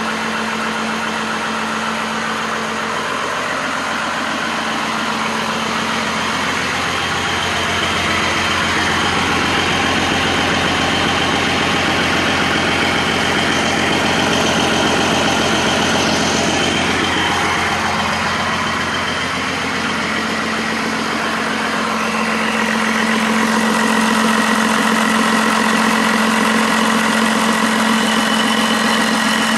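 5.9-litre 12-valve Cummins inline-six turbo-diesel idling steadily, a little louder for stretches about a third of the way in and again near the end.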